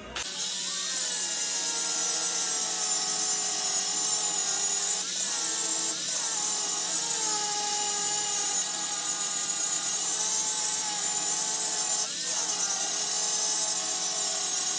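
Handheld electric grinder running continuously against the steel go-kart frame, grinding and cleaning up the old mount areas. Its motor pitch wavers and dips a few times as it bears on the metal.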